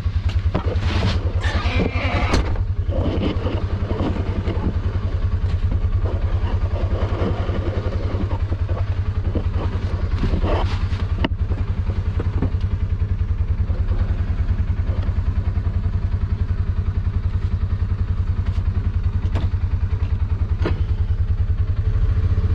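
Polaris Ranger 570 side-by-side's single-cylinder engine running steadily under way, heard from on board, with rattles and knocks from the vehicle, clustered in the first few seconds and again about ten seconds in.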